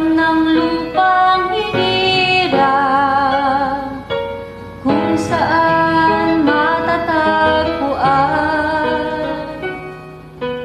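Girls singing a slow song, the held notes wavering with vibrato, over instrumental backing. The singing breaks off briefly about four seconds in and trails off near the end.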